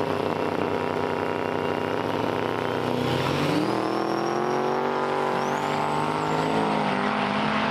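Diesel pickup drag truck's engine running at the starting line, then launching about three and a half seconds in: the engine note steps up and holds under hard acceleration, with a high whistle rising over it.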